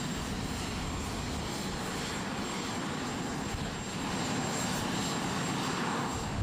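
Steady aircraft engine noise, a little louder from about four seconds in.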